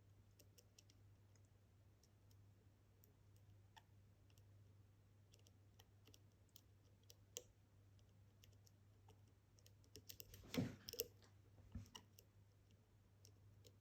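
Faint, scattered clicks and light metallic scraping of a dimple pick and tensioner working the pins of a Kaba experT lock, the small clicks of pins being lifted and set under tension. A louder cluster of clicks and rattle comes about ten and a half seconds in, followed by a soft thump.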